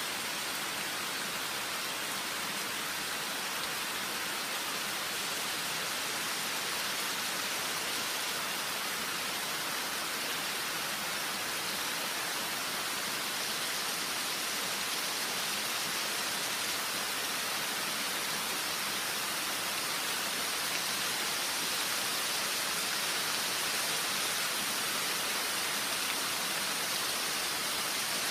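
Rain falling steadily on jungle foliage, a dense even hiss that swells slightly toward the end.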